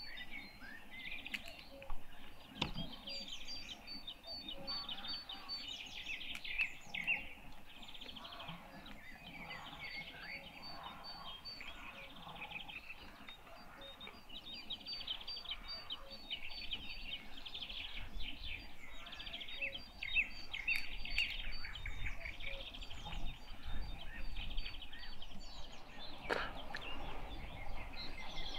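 Several songbirds chirping and singing in a steady spring chorus, with a high note repeated at an even pace through much of it. A low rumble, like wind on the microphone, rises in the second half.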